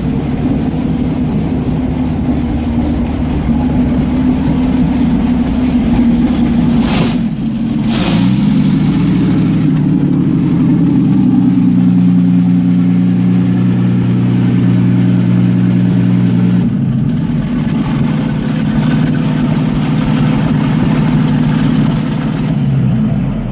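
Jagdpanther tank's Maybach HL230 V12 petrol engine running as the tank drives slowly forward onto a low-loader trailer. Two sharp knocks about a second apart come about seven seconds in, after which the engine note settles a little higher, and it starts dying away at the very end.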